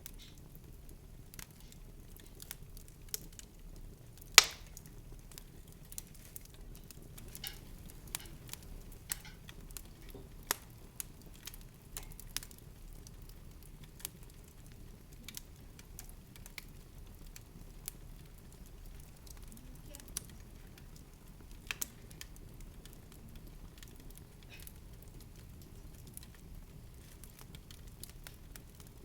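Irregular sharp crackles and clicks over a steady low rumble, with one much louder crack about four seconds in.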